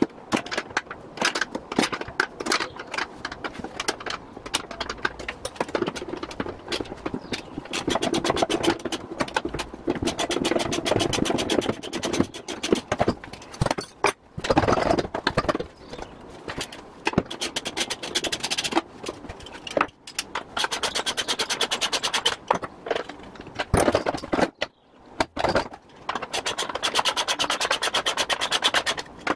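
Hand tools working on the bolts of a bus seat's fittings: fast ratchet clicking in long runs, with metal clinks and scraping between them.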